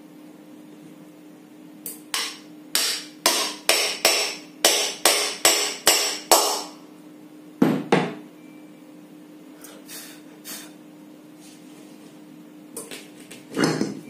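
Hammer tapping a ceiling fan's stator (coil) assembly, with its new bearings, down into the fan housing: about eleven sharp blows at roughly two a second. A couple of heavier knocks follow about eight seconds in, and tools clatter on the bench near the end.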